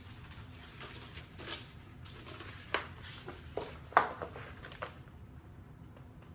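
Vinyl wrap sheet being handled and positioned on a mini fridge: a run of short rustles and taps, the loudest about four seconds in, then only a low steady hum.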